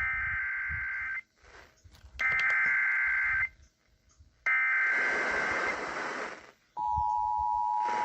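Emergency Alert System SAME header data, three warbling digital bursts of about a second each. The third is overlaid with a hiss. About seven seconds in, the steady two-tone EAS attention signal starts and holds.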